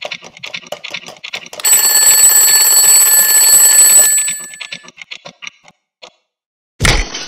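Alarm clock sound effect: ticking, then a loud bell ring lasting about two and a half seconds, then ticking again, and near the end a loud crash as the clock bursts apart.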